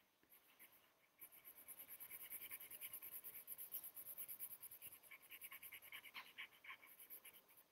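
Faint scratching of a pencil on paper: rapid back-and-forth shading strokes that start about a second in and keep up an even rhythm until near the end.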